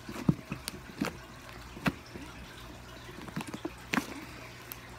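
A large fluffy slime being kneaded and stretched by hand, giving irregular small wet clicks and pops.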